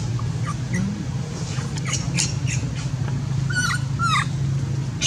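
Baby macaque crying in short, high-pitched squeals that bend in pitch, a scatter of them and then two clearer ones near the end, over a steady low hum.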